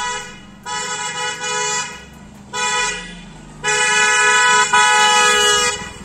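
Type R trumpet-style electric pressure horn on a motorcycle, honked four times: two short honks, a brief toot, then a long blast of about two seconds, the loudest. Two close pitches sound together.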